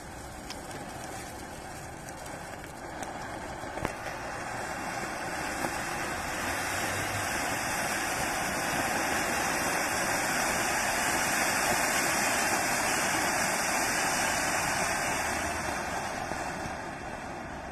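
Large silver matka anar, a clay-pot fountain firework, hissing steadily as it sprays sparks. The hiss swells to its loudest around the middle and fades near the end, with a few sharp crackles in the first seconds.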